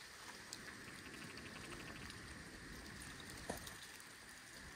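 Faint, quiet outdoor background hiss with a light scattering of ticks, and one short sharp click about three and a half seconds in.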